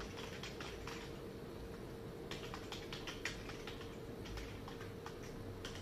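Typing on a computer keyboard: short, irregular runs of key clicks over a faint steady hum.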